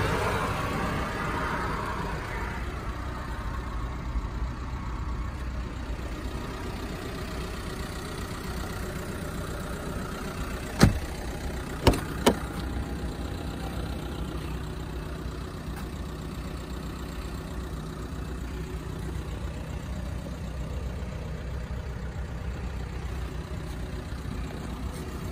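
A low, steady engine hum. A passing vehicle fades away over the first couple of seconds. About eleven seconds in there is a sharp click, and two more follow about a second later.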